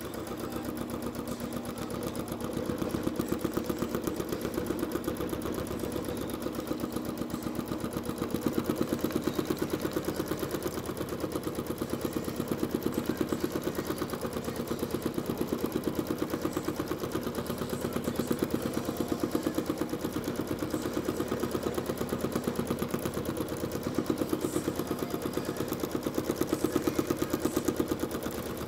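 Janome Skyline S9 sewing machine stitching at high speed during free-motion thread painting, a fast, even needle rhythm that runs steadily and swells slightly in loudness as the speed changes.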